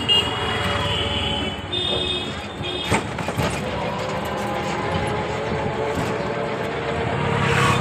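Auto-rickshaw running and rolling along a road, its engine and road noise heard from inside the open passenger cabin. Short high toots, like horns, sound a few times in the first three seconds, and a single sharp click about three seconds in.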